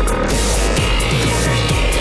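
Loud electronic music with heavy bass and repeated falling pitch sweeps.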